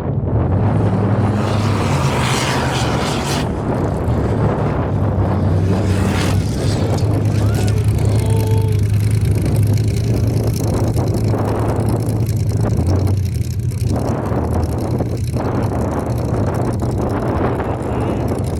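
Formula offroad race car's engine running loudly and continuously, with a few short rises in pitch.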